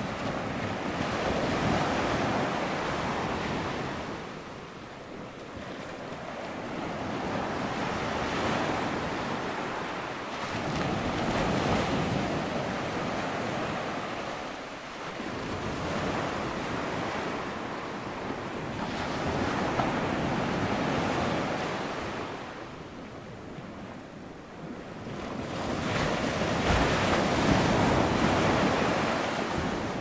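Ocean surf breaking on a shore: a continuous wash of water noise that swells and fades as each wave comes in, every few seconds.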